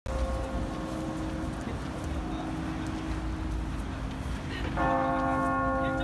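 Seoul Anglican Cathedral's church bell tolling: a ring is already sounding, then a fresh stroke comes in near the end, its many overtones ringing on steadily, over a low background rumble.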